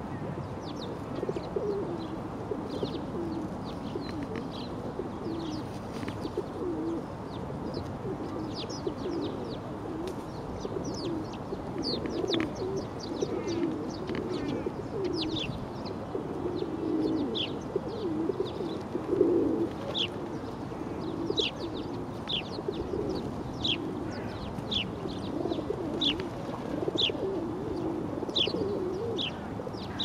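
A flock of feral rock pigeons cooing, a continuous low rolling murmur of many overlapping coos. Short high chirps run over it, coming about once a second in the second half.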